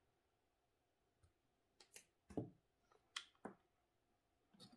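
A handful of light, separate clicks and knocks from handling the plastic-and-metal airsoft replica and small tools on a tabletop, with a louder clatter at the very end.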